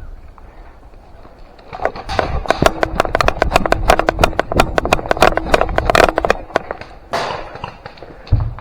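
Airsoft gun fire: a rapid string of sharp snapping shots, about seven a second, starting about two seconds in and lasting around four seconds, followed by a short rustling burst.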